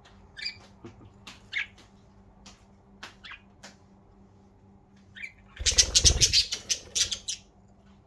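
Budgerigars giving short, scattered chirps, then a loud run of rapid budgie wingbeats lasting about a second and a half in the second half.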